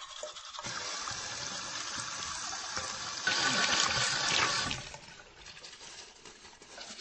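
Rushing liquid: a hissing gush that starts about half a second in, grows louder in the middle for about a second and a half, then dies down.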